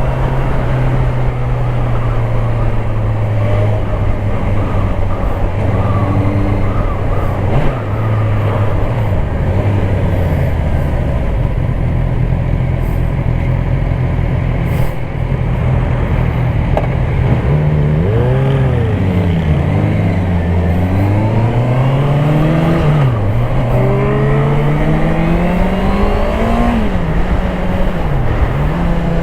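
Honda CBR650R's 649 cc inline-four engine running at a steady pitch while riding. From about halfway through, the revs climb and fall back several times as it accelerates up through the gears.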